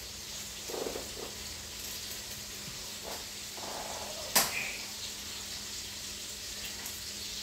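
Water running as boiled macaroni is drained, a steady rush, with one sharp clank of the pot about four seconds in.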